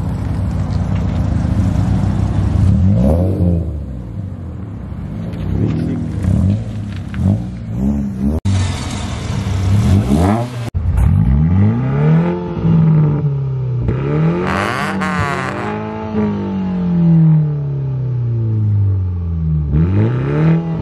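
Car engines running and being revved. At first the engine mostly runs steadily, with a few rises in pitch. After a cut, it is blipped over and over, its pitch climbing and falling roughly once a second.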